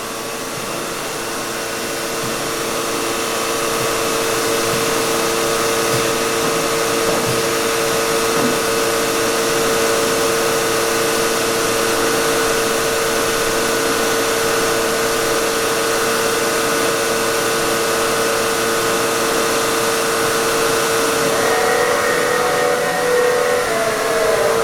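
The rotary-vane vacuum pump of a Weeke BHC Optimat Venture 1 CNC machining center running, a steady drone with a constant hum. It swells over the first few seconds, and a few higher tones join near the end as the machine moves.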